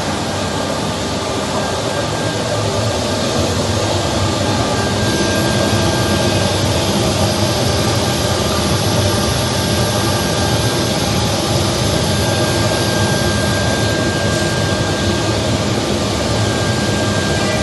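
Bulleri 3515 FPM wood CNC machine running: a steady, loud mechanical and air noise with a faint high whine that fades out and returns.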